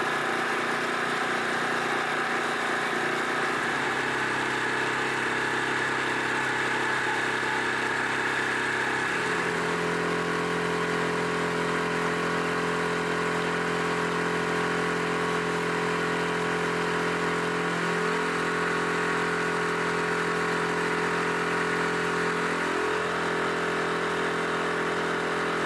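Small boat's motor running steadily while under way, its note shifting slightly twice in the first half.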